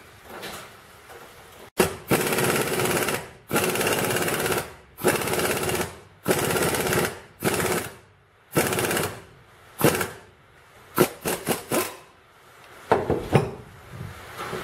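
Impact wrench hammering in about eight bursts of roughly a second each, the last few only brief blips. It is driving the screw of a C-clamp style U-joint press to press a needle-bearing cap into the yoke.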